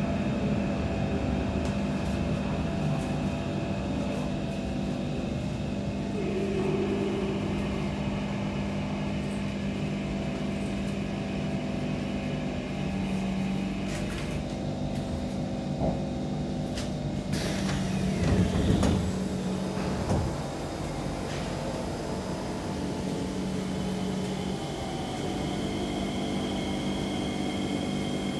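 Kawasaki C151 metro train heard from onboard, its permanent-magnet synchronous traction motors giving a steady whine over the running noise. About 18 to 19 seconds in there is a louder rumble, and near the end a higher whine sets in.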